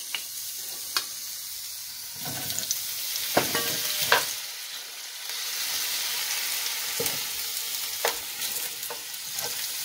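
Hot olive oil sizzling in a nonstick frying pan as carrot slices, ginger and freshly added potato chunks fry. A steady hiss runs throughout, broken by a few sharp clicks as the pieces are moved with tongs.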